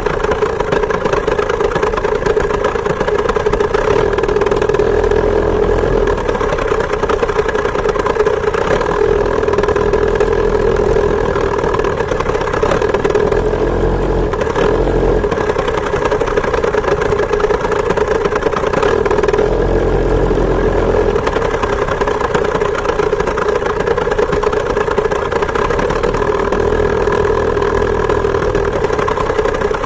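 Two-stroke chainsaw engine driving a homemade moped, running steadily under way, with low rumbles coming and going.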